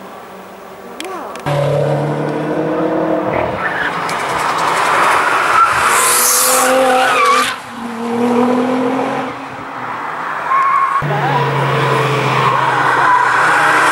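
Cars driven hard through a race-track corner one after another, engines revving as they pass, with a tyre squeal about halfway through. The engine sound changes abruptly twice as one car's pass gives way to the next.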